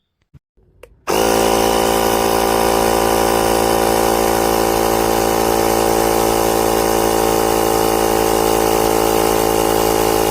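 Small portable electric air compressor, built into the VTOMAN X7 jump starter, switched on about a second in and running with a steady, loud motor-and-piston buzz.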